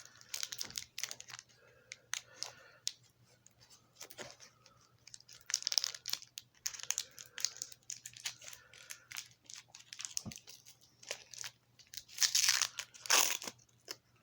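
Paper wrapper of a roll of Necco candy wafers being torn open and crinkled by hand, in irregular crackling rustles with louder tears now and then. A faint steady hum sits underneath.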